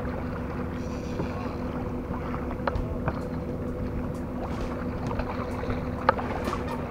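Steady wind and water noise with a low, even hum, broken by a few sharp clicks from handling the rod and spinning reel, the clearest about two and a half and six seconds in.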